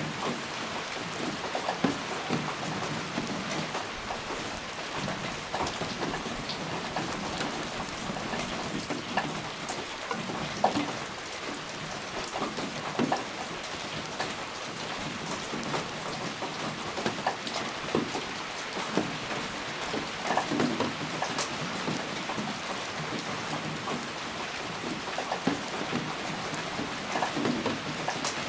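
Steady rain, with many separate raindrops striking close by in an irregular patter.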